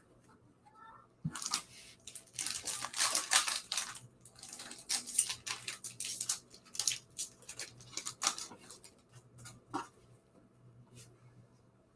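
Foil wrapper of an Upper Deck baseball card pack crinkling and tearing as it is ripped open by hand, in a run of short crackly bursts that are loudest a couple of seconds in, with lighter rustles near the end.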